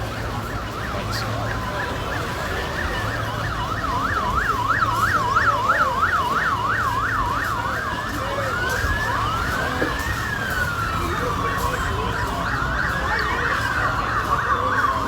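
Police motorcycle sirens sounding a slow rising-and-falling wail, switching about four seconds in to a fast yelp for a few seconds, then back to the slow wail, over a low steady rumble.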